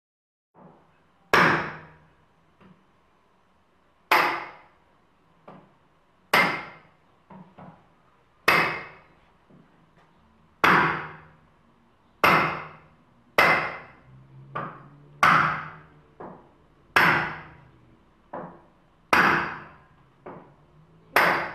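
A run of sharp, loud strikes, about one every two seconds, each dying away over a second or so, with softer taps in between.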